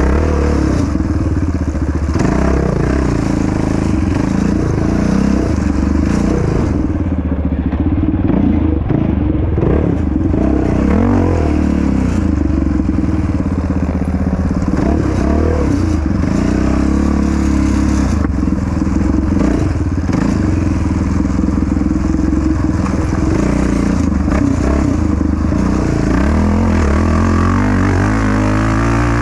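Yamaha Raptor 700 quad's single-cylinder four-stroke engine running hard under race throttle, its pitch rising and falling as the throttle opens and closes.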